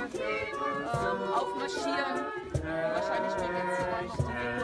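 A group of voices singing together in harmony, a choir holding and changing notes, with a couple of low thumps about two and a half and four seconds in.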